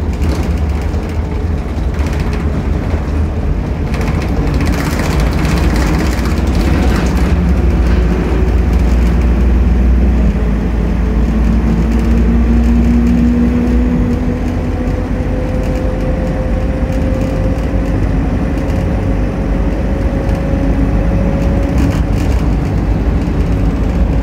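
Interior running noise of a 2008 Optare Solo M950 midibus on the move: a deep steady rumble from the diesel engine and road, with the engine note rising slowly as the bus gathers speed. Sharp rattles and clatters from loose interior fittings come in a cluster a few seconds in and again near the end, the sound of a worn, rattly bus.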